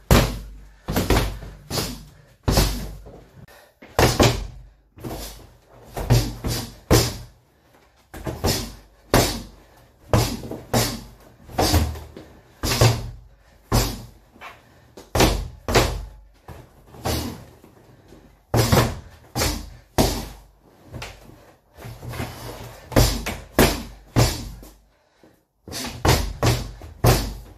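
Punches landing on a Century heavy bag: sharp thuds in quick bursts of two to four strikes, with short pauses between the combinations.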